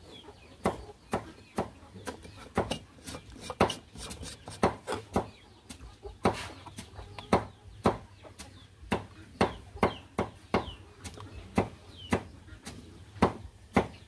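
Chickens clucking: an irregular run of short, sharp clucks, about two a second, with a few faint high chirps between them.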